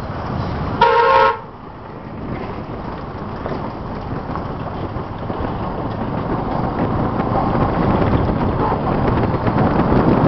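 A vehicle horn toots once, briefly, about a second in, over steady street and traffic rumble that grows louder toward the end.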